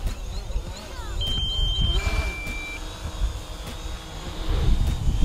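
Electronic warning beeps from a DJI Mavic Pro drone's controller: a higher tone then a lower one about a second in, each under a second long, signalling a depleted battery as the drone comes down to land. Beneath them is a low steady rumble.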